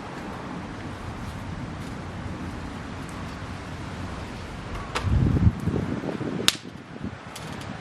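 Wood fire burning with a steady low rush. Two sharp pops come about five seconds in and a second and a half later. A half-second gust of wind buffets the microphone alongside the first pop.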